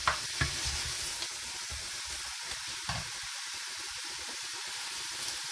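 Minced meat with grated carrot and onion sizzling steadily as it sautés in a frying pan. A wooden spatula knocks and scrapes against the pan a couple of times in the first half-second while stirring, then the pan just sizzles.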